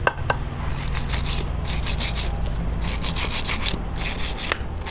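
A flat steel blade scraping back and forth on a truck's steering tie-rod end in quick repeated strokes. A steady low hum runs underneath, and there are two short clicks at the very start.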